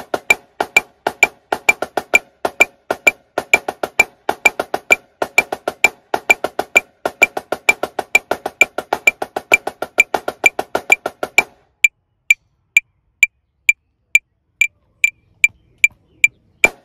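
Dynasty marching snare drum playing a triplet double-beat exercise at 130 bpm over a steady metronome click. About eleven seconds in the drumming stops and the metronome ticks on alone at a quicker 150 bpm, as a count-off for the next tempo.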